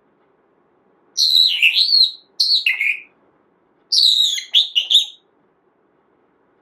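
Pet parrot making three high-pitched whistling calls whose pitch swoops up and down, the last one the longest.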